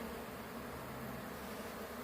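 A honeybee swarm buzzing steadily as the bees crowd into a hive box.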